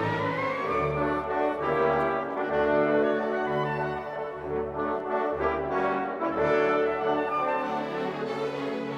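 Orchestral music with the brass section to the fore, playing held chords over low bass notes that change every second or so.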